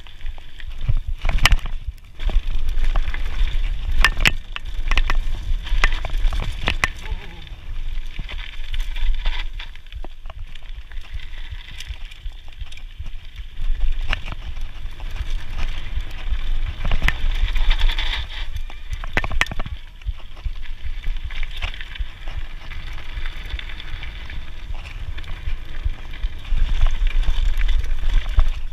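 Scott Genius full-suspension mountain bike ridden over a dirt singletrack: steady tyre noise on dirt with frequent sharp knocks and rattles from the bike over bumps, and a low rumble of wind on the chest-mounted camera.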